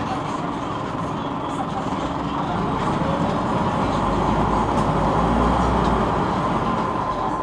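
Scania OmniCity city bus heard from inside the passenger cabin while under way: engine and road noise with a steady hum, the low rumble growing louder from about two and a half seconds in and easing off near the end.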